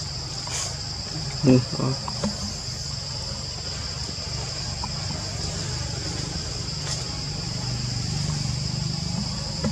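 Steady high-pitched drone of insects, an even buzz that holds through, over a low rumble. A short, louder vocal sound breaks in about a second and a half in.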